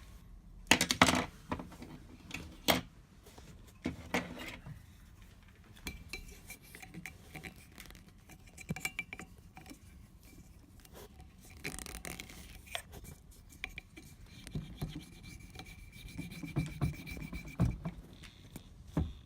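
Intermittent scraping and rubbing with scattered clicks as the foil capsule over a wine bottle's cork is cut and picked at.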